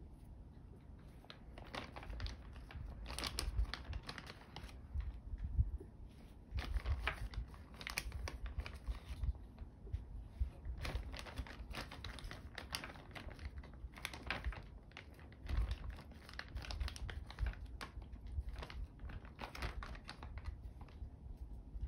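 Wooden chopsticks stirring and turning cucumber slices coated in a yogurt-and-miso pickling paste in a glass container. The sound is irregular light clicks and wet, crinkly rustling of the slices, in scattered bursts.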